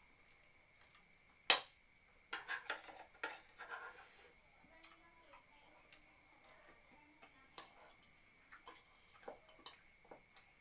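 Fork and spoon clinking and scraping against a plate and bowl while eating. There is one sharp clink about one and a half seconds in, a quick run of clicks just after, then scattered light clicks. A faint steady high whine sits underneath.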